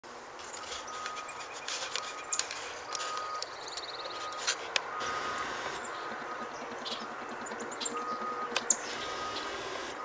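Distant construction equipment's reversing alarm beeping about once a second, with birds chirping and calling over it. Two sharp falling chirps, one about two seconds in and one near the end, are the loudest sounds.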